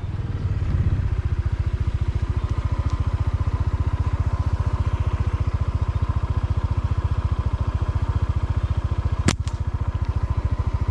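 Small motorcycle engine idling with an even pulse. About nine seconds in there is a sharp snap as a slingshot's rubber bands are released on a shot.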